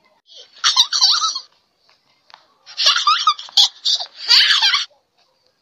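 Baby giggling and laughing in short bursts: one laugh about a second in, then a longer run of giggles from about three to nearly five seconds in.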